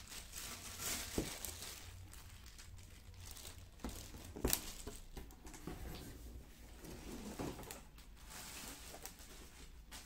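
Plastic packaging bags crinkling and rustling as parts are lifted out of a cardboard box, with a couple of sharp knocks, the loudest about halfway through.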